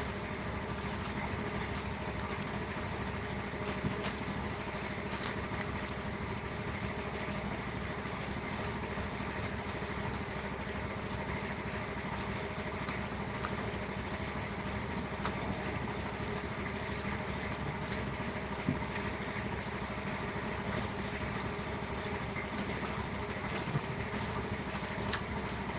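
A steady machine hum with a few light knocks.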